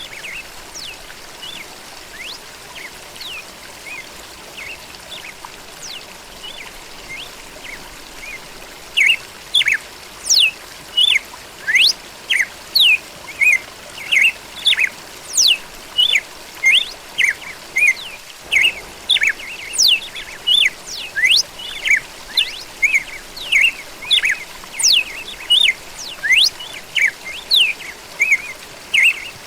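Red-cowled cardinal (galo da campina) singing over a steady trickle of running water. Faint scattered chirps at first, then about a third of the way in a loud, rapid run of short whistled notes begins, many sweeping sharply down in pitch, two to three a second.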